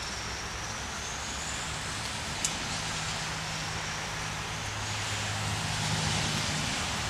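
Steady hiss of light rain with a low hum of road traffic beneath, and one small click about two and a half seconds in.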